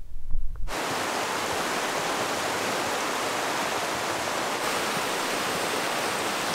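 A low rumble cuts off under a second in, giving way to the steady rush of a mountain creek pouring over rocks, with a slight change in tone about two-thirds of the way through.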